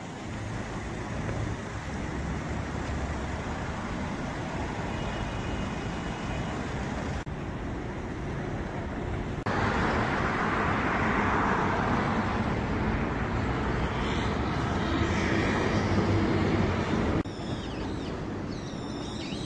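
Road traffic on a city street: a steady rush of passing cars, louder for several seconds in the middle, with sudden changes in level. A few bird chirps come in near the end.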